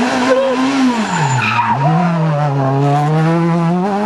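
Renault Clio rally car's engine at high revs, dropping sharply as it slows for a bend about a second in, then revving up steadily as it accelerates away.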